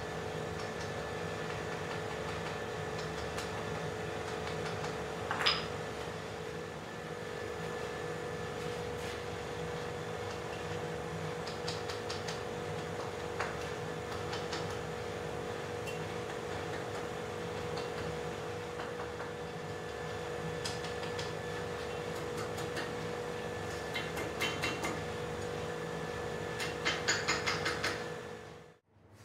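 Steady hum of a forge blower running, with scattered light taps, one sharper knock about five seconds in, and a quick run of hammer blows near the end; the sound then cuts off suddenly.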